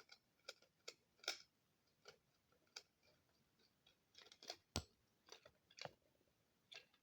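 Faint, irregular small clicks and taps from a screwdriver working a screw out of a sound machine's plastic casing, about a dozen spread over several seconds.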